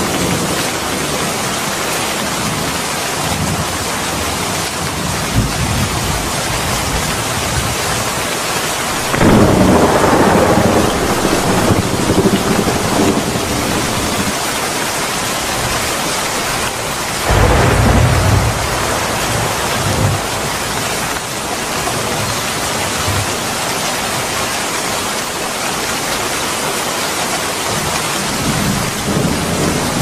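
Heavy rain falling steadily in a thunderstorm, with two rolls of thunder, one about nine seconds in and a shorter one around seventeen seconds.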